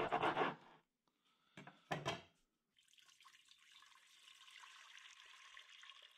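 Water poured from a glass measuring cup into a stainless steel stockpot: a steady, fairly quiet splashing pour that starts about three seconds in. Before it come a few short, louder crunches and knocks, as a knife finishes cutting a rack of pork ribs on a plastic board.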